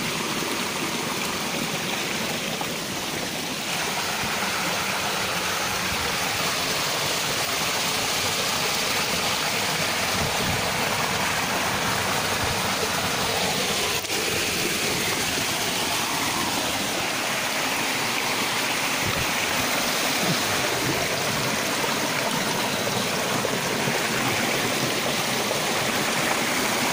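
Shallow stream water running steadily over rocks, a constant rushing noise.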